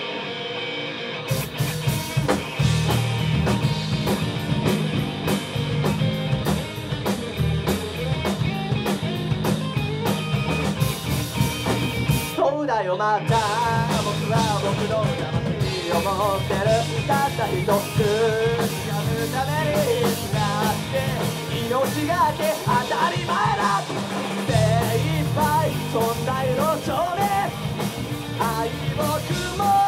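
Live rock band, with electric guitars, bass and a drum kit, playing a song. A guitar plays alone for about the first second before the full band comes in; the band stops briefly near the middle, then a singer's voice comes in over the band.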